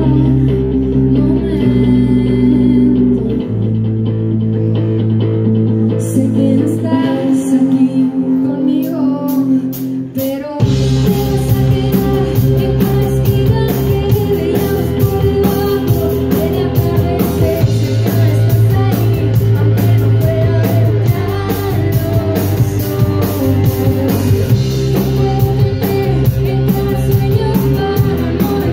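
Live band playing a slow rock ballad: acoustic and electric guitars, bass and drum kit, with a woman singing. It opens sparse on held guitar and bass notes, drum ticks build from about six seconds in, and the full band comes in about ten seconds in.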